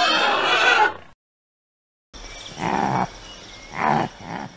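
Domestic pig squealing and grunting loudly, cut off abruptly about a second in. After a second of silence, three short, quieter noisy sounds follow.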